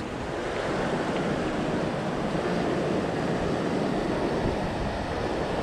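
Ocean surf washing over shoreline rocks: a steady rushing of breaking water.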